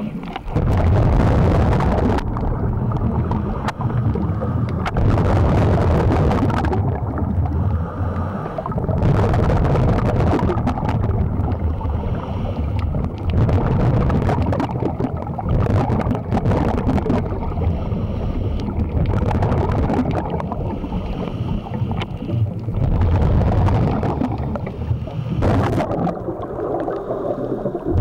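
Scuba regulator breathing underwater: a loud gurgling rush of exhaled bubbles every three to four seconds, with quieter stretches between breaths.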